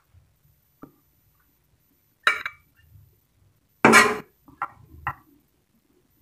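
Serving utensil clattering against a wok and a ceramic plate as stir-fried cabbage is dished up: two sharp clatters about two and four seconds in, then a couple of light clinks.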